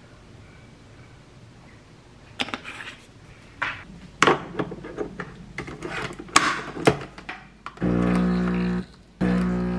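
Clicks and knocks of a coffee machine being loaded and a glass set under its spout, then the machine's pump starts with a loud steady hum about eight seconds in, breaks off for a moment and starts again as it begins brewing.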